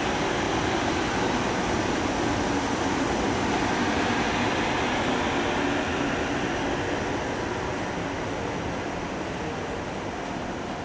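FS class E.652 electric locomotive running past close by, a steady rumbling noise that slowly fades in the second half as it moves away.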